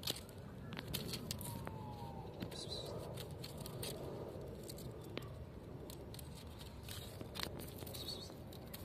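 A kitten's claws scratching and tapping on tree bark and dry ground, as light scattered clicks and rustles over a steady outdoor background.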